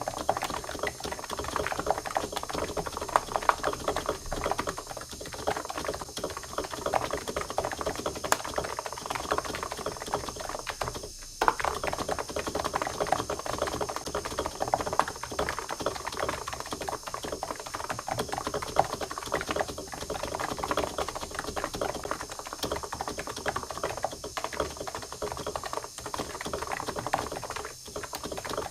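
Continuous fast typing on a computer keyboard: a dense run of key strokes, with a brief pause about eleven seconds in.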